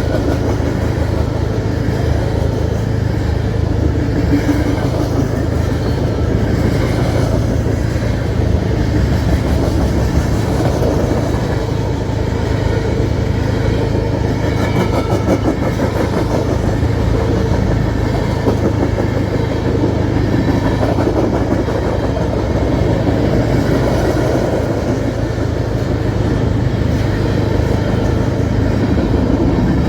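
Freight train rolling by, a steady loud rumble with wheel noise on the rails.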